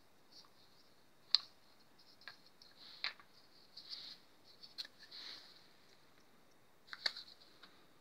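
Hands handling a homemade shotgun-shell sizing tool and a brass-headed shotgun shell: sharp metal clicks a little over a second in and near the end, with lighter clicks and scraping between.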